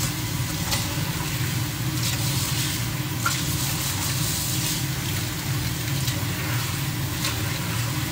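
Water running steadily from a kitchen tap into a sink, with a few faint clicks.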